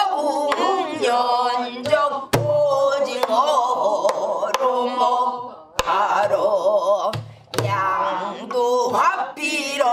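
Pansori singing in a woman's voice, long bending melismatic phrases, accompanied by a buk barrel drum struck with a stick. It gives several sharp knocks on the drum's wooden shell and a few low thuds on the head between the sung phrases.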